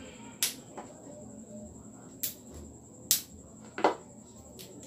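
About six sharp, separate clicks and taps from small plastic and metal dive-flashlight parts being handled by hand, spread unevenly over a few seconds.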